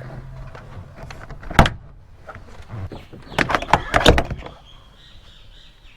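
Car interior trim and rubber weather seal being pulled off by hand: a sharp snap about one and a half seconds in, then a quick run of clicks and scrapes a little after three seconds.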